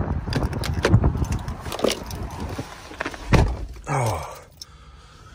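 Ford pickup truck door being opened by its handle, keys jangling and clicks as someone climbs into the cab, then the door slammed shut about three seconds in, the loudest sound; after it the sound turns muffled and quieter, as inside the closed cab.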